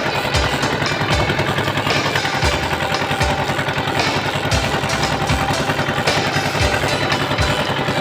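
Fishing boat's engine running steadily with a fast low throb, loud and close.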